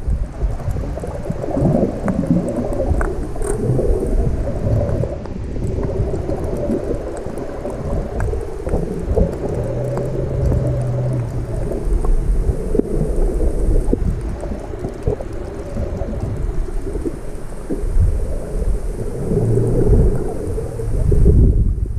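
Muffled underwater rumble and sloshing of shallow sea surge over rocks, heard with the microphone underwater, with scattered faint ticks and clicks.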